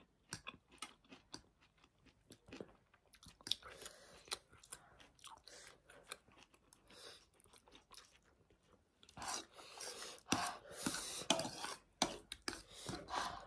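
Close-miked eating of instant noodles: chewing with many small, sharp mouth clicks, growing louder and busier about nine seconds in.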